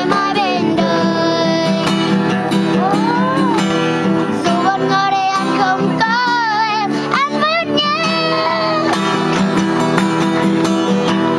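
A boy singing a slow Vietnamese ballad to a strummed acoustic guitar, holding long notes that waver with vibrato around the middle.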